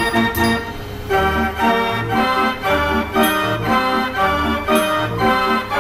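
Gavioli fairground organ playing a lively tune: chords over a steady beat of bass notes.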